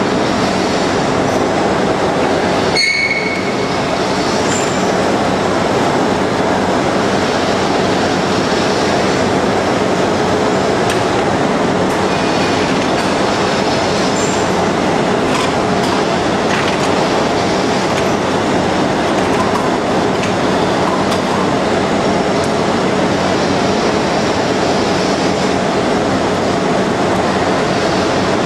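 CNC shaping lathe running as it turns a porcelain insulator blank: a steady, loud mechanical noise with a faint constant hum under it. A short high squeal sounds about three seconds in.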